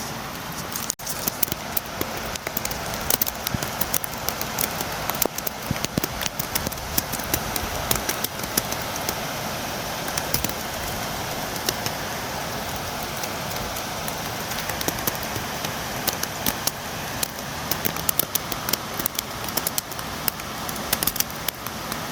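Steady rain, with many sharp drop taps against a window scattered through it. There is a brief dropout about a second in.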